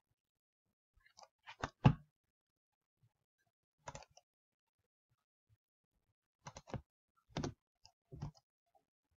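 Computer mouse and keyboard clicking in a few short clusters of sharp clicks: one about one and a half to two seconds in (the loudest), one near four seconds, and several more from about six and a half to eight and a half seconds.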